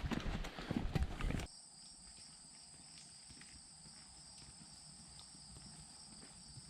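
Footsteps on a hiking trail, loud and irregular for about the first second and a half. The sound then drops abruptly to a quiet stretch of steady high-pitched insect song, with faint footsteps under it.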